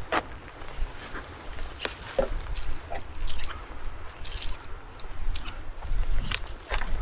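Footsteps squelching and crunching irregularly on wet ground, with wind buffeting the microphone.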